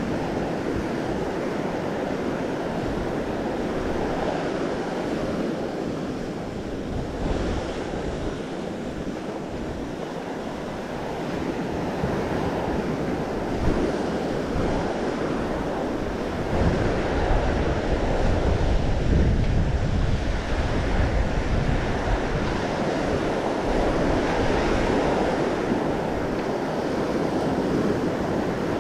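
Ocean surf washing onto the beach, with wind buffeting the microphone in heavier gusts a little past the middle.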